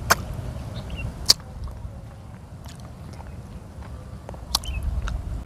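A person biting and chewing a peeled lime, with three sharp crunchy bites: one at the start, one a second later and one near the end. A steady low background rumble runs underneath.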